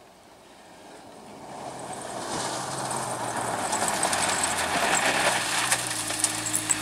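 Renault Clio Rally5 rally car approaching at speed on a gravel road, its engine growing louder over the first few seconds and then staying loud, with the hiss of tyres on gravel and sharp clicks of flung stones.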